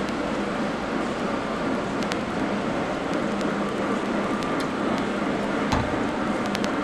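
Steady background din of a large exhibition hall, with a faint hum, a few scattered faint clicks and one knock near the end.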